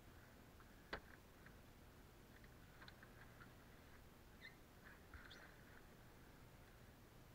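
Near silence, with one faint sharp click about a second in and a few faint ticks and short high chirps later.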